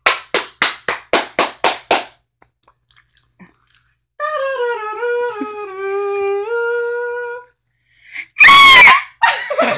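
A person's voice making noises: about eight quick short bursts in the first two seconds, then a held hum that steps up and down in pitch for about three seconds, then a loud yell near the end.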